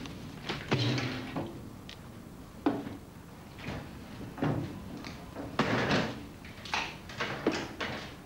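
A string of irregular knocks and clunks as someone climbs into the back of a canvas-covered army truck: boots and gear striking its metal side and cargo bed.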